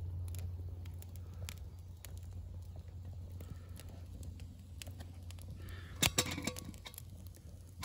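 Small stick fire crackling with scattered pops over a steady low hum. About six seconds in, a short clatter of louder knocks and clicks.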